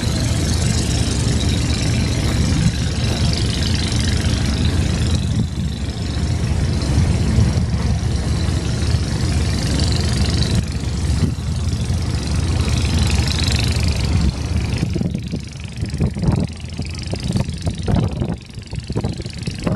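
Engine of an express passenger launch running steadily, with a rushing noise over it. About fifteen seconds in the sound drops and turns uneven and choppy.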